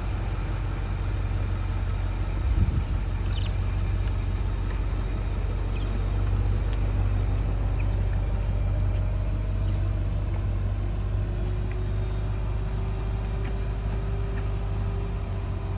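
Car being driven steadily: a continuous low engine and road rumble, with a faint whine that slowly rises in pitch over the second half.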